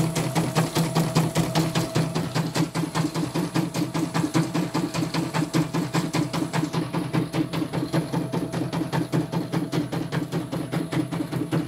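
CNY portable computerized embroidery machine stitching, its needle mechanism clattering in a fast, even rhythm over a steady motor hum. With the covers off, the mechanism is exposed.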